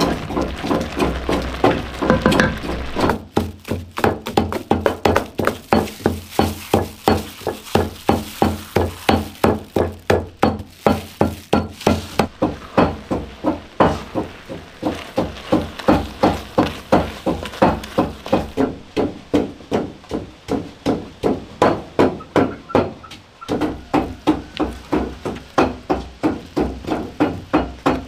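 Wooden paddle knocking rhythmically against a cooking pot as it mashes steamed sticky rice and mung beans into a soft paste, about three strokes a second.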